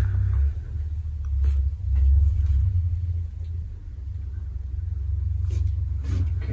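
A steady low rumble that swells and fades, with a few faint soft clicks over it.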